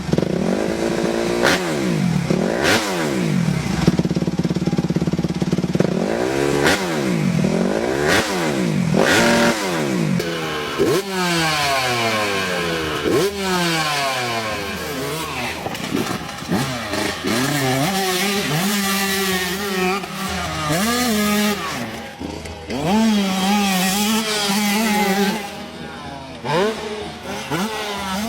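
Single-cylinder motorcycle engines revving, the throttle blipped up and down over and over. Several long falling sweeps follow as the revs drop, then a steadier run with short blips of throttle.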